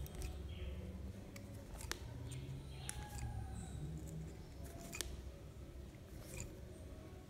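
Sharp clicks of a small hand tool working the wires at a wall socket outlet, four or five in all, one every second or two, over a low steady rumble.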